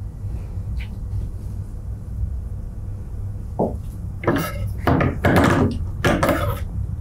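Fabric and fringe trim rustling as they are handled and laid in place, in a few short bursts starting about four seconds in, over a steady low hum.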